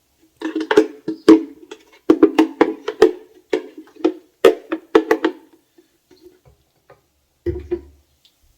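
Background music with a clicking, wood-block-like percussion beat that stops about two-thirds of the way through. A short low thump comes near the end.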